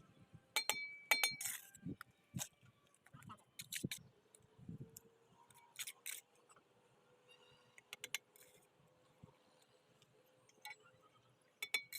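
Irregular sharp metallic clinks and taps, a few ringing briefly, typical of a mason's steel trowel knocking against bricks and mortar while laying a wall.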